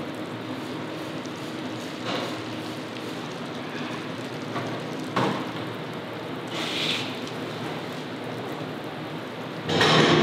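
Working noise of a lamb slaughter line: a steady machinery hum under a hiss like running water, with a few metal knocks and a brief hiss about seven seconds in. A louder burst of sound begins near the end.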